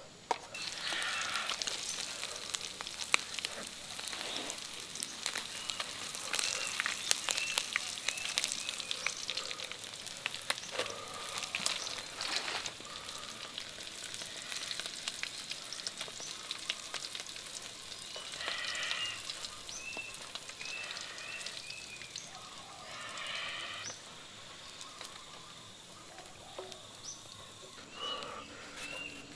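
Food frying in hot oil in a small metal pan, sizzling with a dense crackle of pops while a wooden spatula stirs it. The crackle is thickest in the first half and eases off after that.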